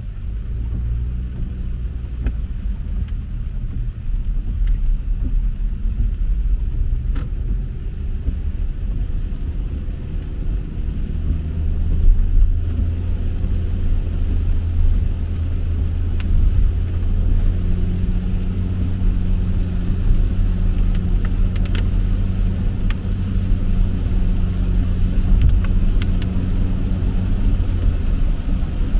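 Inside a moving car's cabin: a steady low rumble of engine and tyres on a wet road, with a low engine hum that grows stronger about halfway through, and a few faint ticks.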